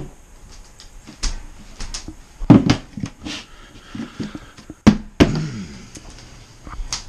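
Red plastic lid being fitted and pressed down onto a round beverage-cooler mash tun: a string of plastic knocks and thumps. The loudest comes about two and a half seconds in, with another pair around five seconds in, the second with a short ringing tail.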